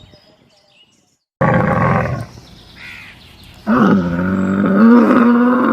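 Recorded animal calls: a loud short call about a second and a half in, then from near the middle a long, steady call held for several seconds.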